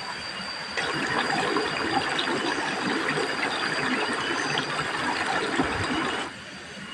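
Water pouring and splashing for about five seconds, starting and stopping abruptly.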